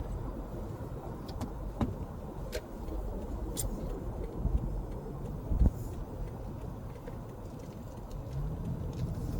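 Interior noise of a car being driven: a steady low rumble of road and engine, with a few light clicks in the first few seconds and a single low thump a little past halfway.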